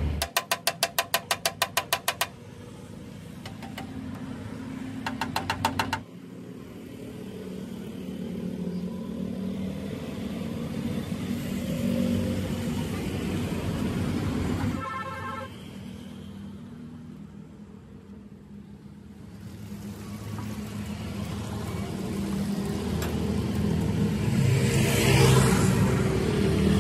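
Street traffic, with motor vehicles running and passing and getting louder near the end. At the start there is a loud burst of rapid clicking, about ten a second, lasting about two seconds, and a shorter burst comes about five seconds in.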